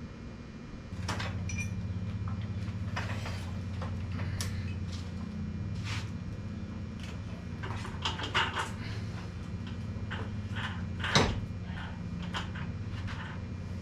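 Scattered clanks and knocks of tools and metal parts being handled, with one sharp knock near the end louder than the rest. A steady low hum starts about a second in and runs underneath.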